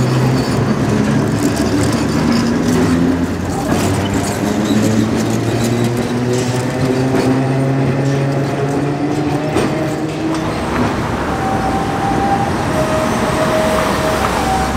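Perley A. Thomas 900-series streetcar running along the street over city traffic noise. Its electric motors make a steady hum whose tones step up in pitch as it moves.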